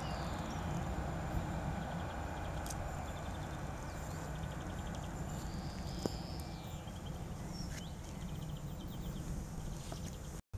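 Class 153 diesel railcar running away into the distance: a low steady rumble that fades gently. Birds chirp and trill over it.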